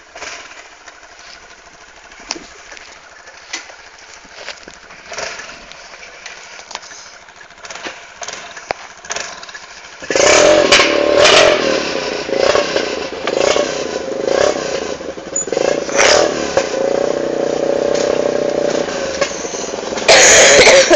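ATV engine, quiet at first with scattered clicks and knocks, then about halfway through suddenly running loud and revving, with small rises and falls in level.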